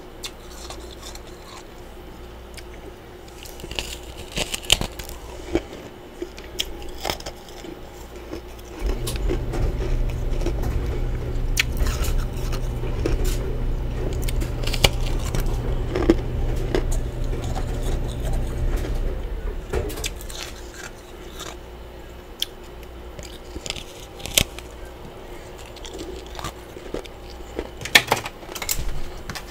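Close-miked crunching and biting of chunks of freezer frost, scattered sharp crunches. A low steady hum comes in about nine seconds in and stops about ten seconds later.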